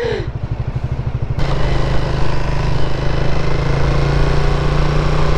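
Motorcycle engine running steadily while riding. About a second and a half in, the sound changes abruptly to a louder wind rush on the microphone over a steady engine hum.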